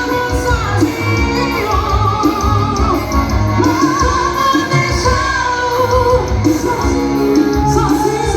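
A woman singing a wavering melody over amplified band music with a steady bass beat.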